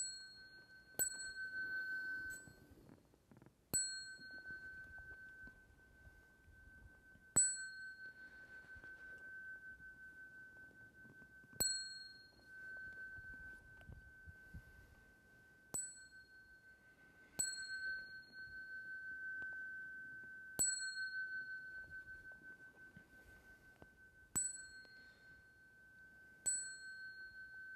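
Small temple bell struck about ten times at uneven intervals of one to four seconds, each strike ringing on a clear high tone that carries on until the next. This is the bell that paces the closing bows.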